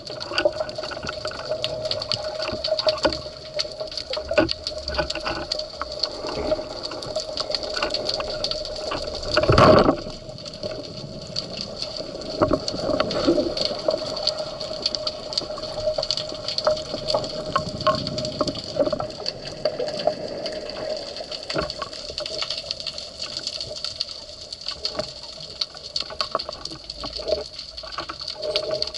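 Underwater sound picked up by a diver's camera: moving water with a steady hum and a constant scatter of small clicks, and one short loud rush of water about ten seconds in.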